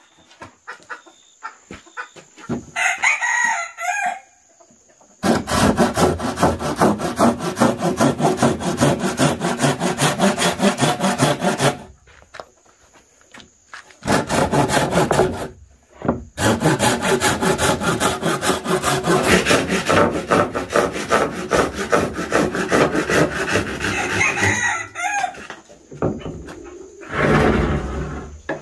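Wood being sawn by hand in long runs of quick, even strokes that stop and restart twice. A rooster crows before the sawing starts and again near the end.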